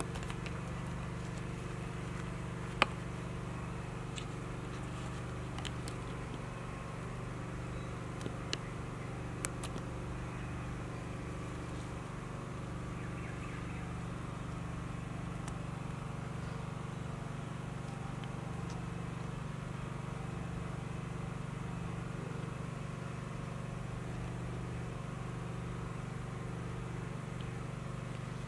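Steady low mechanical hum with a few faint sharp clicks.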